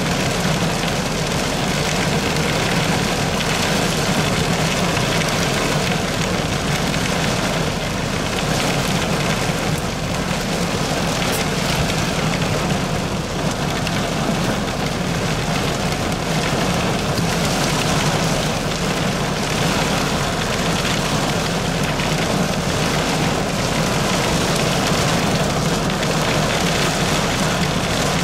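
Heavy wind-driven thunderstorm rain beating steadily on a car's roof and windows, heard from inside the car as a dense, even hiss.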